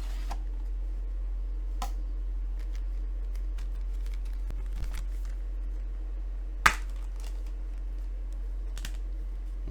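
Light plastic clicks and taps of Blu-ray discs and cases being handled, with one sharp snap about two-thirds of the way through. A steady low electrical hum runs underneath.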